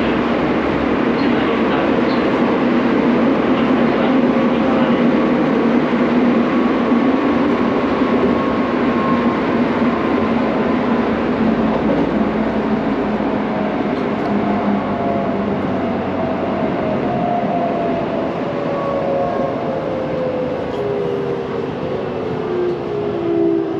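Electric commuter train heard from inside the car: steady rumble of wheels on the track and running noise. In the second half the traction motors' whine falls slowly in pitch as the train slows toward a station.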